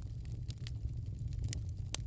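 Wood fire crackling in a fireplace: a handful of sharp, scattered pops over a steady low rumble.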